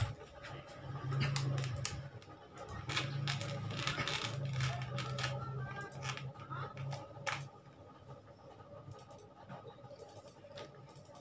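Small plastic toy pieces clicking and tapping together as they are handled, with a low hum underneath that stops about seven seconds in.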